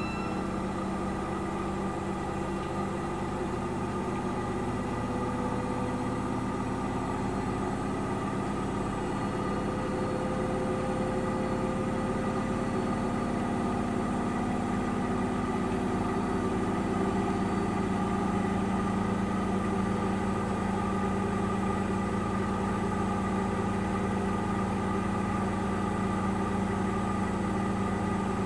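AEG Lavamat 8000 Series front-loading washing machine spinning its drum in the second spin-up of the final spin, a steady motor and drum hum. Partway through, the hum rises a little in pitch and loudness, then holds.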